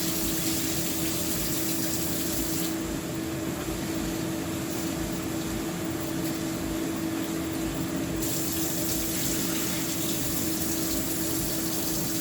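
Kitchen tap running water into a pot of rice being washed; the flow eases off about three seconds in and comes back strongly about eight seconds in. A steady hum runs underneath.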